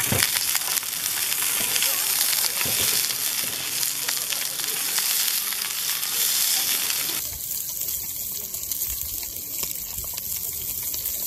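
Sausages sizzling steadily in hot oil in a stainless steel frying pan over a small wood-burning stove, with a couple of soft knocks as wooden chopsticks turn them. The sizzle gets a little quieter about seven seconds in.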